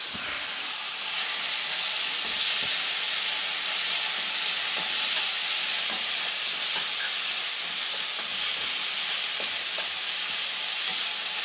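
Bacon frying in a non-stick pan, a steady sizzle that grows a little louder about a second in, with light clicks as the pieces are moved about with tongs.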